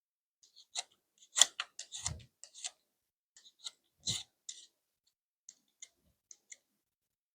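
Vegetable peeler scraping down a carrot in short, irregular strokes, with a couple of dull knocks about two and four seconds in.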